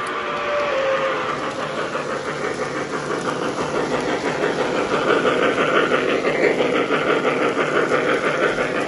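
K-Line O-scale steam locomotive running at speed on three-rail track. Its onboard sound system, fitted with an upgraded speaker, gives a fast, even steam chuffing over the rumble of the wheels on the rails.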